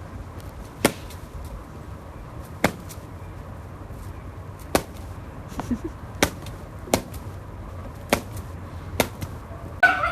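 A series of sharp taps or knocks, about eight of them, irregularly spaced roughly a second apart, over a low steady background hum.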